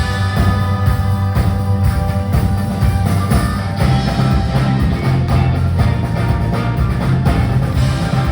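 Live rock band playing an instrumental passage with a steady beat and a moving bass line.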